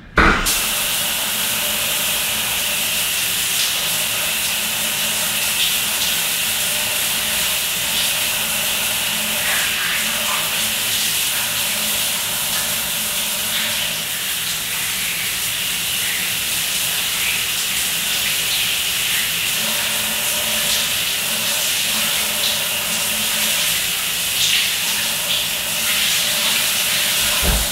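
Shower running: a steady hiss of water spraying down onto a person standing in a tiled shower stall.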